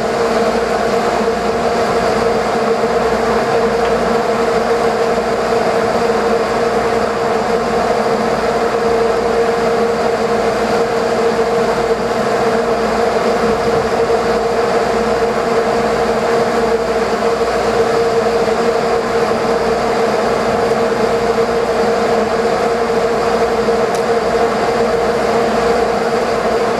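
Steady drone of a sportfishing boat's diesel engines, heard on deck as an even, unbroken hum with a steady tone.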